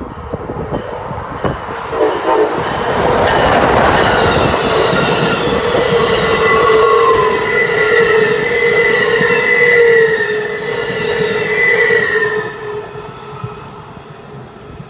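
Amtrak Northeast Regional train, an ACS-64 electric locomotive with Amfleet coaches, passing close at speed: the rush of wheels on rail builds about two seconds in, with a steady high squeal from the wheels as the coaches go by, then fades near the end.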